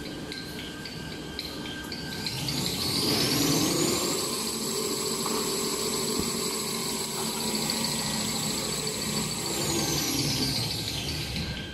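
Embossing and glue-laminating toilet-tissue and kitchen-towel rewinding machine running, with light rhythmic clicking at first. About two seconds in, its whine rises as it speeds up, holds steady at speed, then falls in pitch near the end as it slows down.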